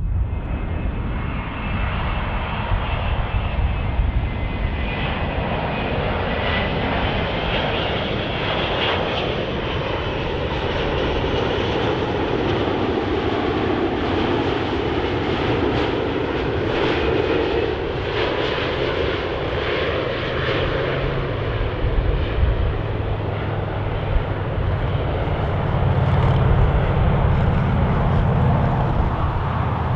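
Airbus A380's four jet engines at approach power as the airliner comes in to land: a steady rushing jet noise with a faint high whine, both sliding lower midway as it passes. A deeper rumble builds near the end as it nears the runway.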